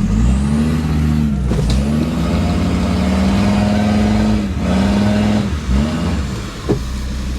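4x4 engine revving hard, the revs rising and falling several times and held high for a couple of seconds, as the vehicle strains off-road. Two sharp knocks come through, one about a second and a half in and one near the end.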